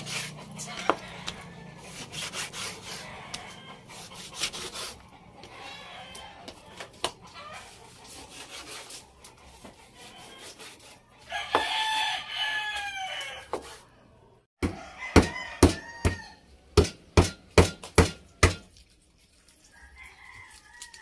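Kitchen knife cutting on a wooden chopping board: light knocks while the meat is being sliced, then about halfway through a quick run of about ten sharp chops, roughly three a second. A rooster crows once just before the chopping run.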